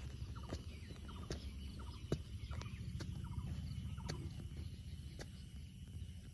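Irregular dull knocks of a small hand hoe chopping into dry garden soil, roughly one a second, the sharpest about two seconds in, over a low steady rumble.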